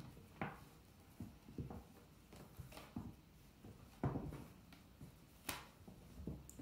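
Willow rods rustling and knocking against each other as a long willow stick is woven around a willow heart frame: scattered soft clicks and rubs, the loudest about four seconds in.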